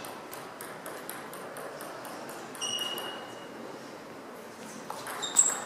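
Table tennis ball in play: light, quick ticks early on, then a few sharp clicks of the celluloid ball off bat and table near the end, over the low noise of a sports hall.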